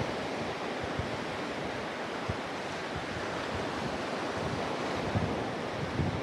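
Sea surf washing onto the beach, a steady rushing hiss, with wind buffeting the microphone in irregular low gusts.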